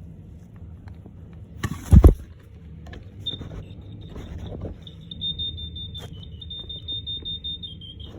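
First Alert SA67D smoke alarm's horn giving a faint, thin high tone that wavers and cuts in and out for about five seconds: the horn is broken and can barely sound. A loud thump about two seconds in, before the tone starts.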